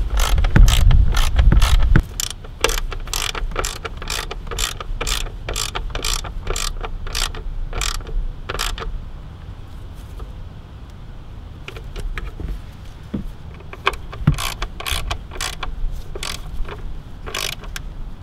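Ratchet wrench clicking as T40 Torx bolts are tightened, about three clicks a second, with a pause of a few seconds midway before the clicking resumes. A low rumble sounds under the first two seconds.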